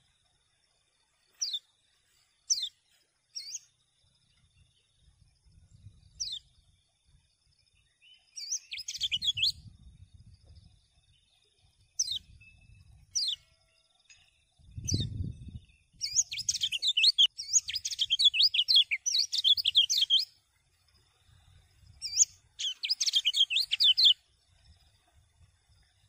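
Yellow white-eye (kecial kuning) singing in full voice: single short downward-swept chirps, then three long bursts of rapid, high twittering song, the longest about four seconds. A faint steady high tone runs underneath, and a low thud comes about halfway.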